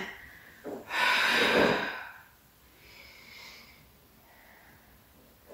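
A woman breathing hard with the effort of an abdominal curl: a strong breath out lasting about a second, then a fainter breath a second later.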